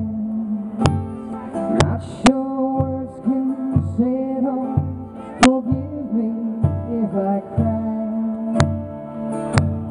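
A woman singing a slow song live into a microphone, accompanying herself on a strummed acoustic guitar, with a few sharp strums standing out.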